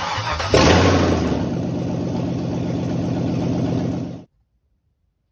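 Swapped-in GM 5.3 LS V8 engine starting: it catches about half a second in, then runs steadily, and the sound cuts off abruptly about four seconds in.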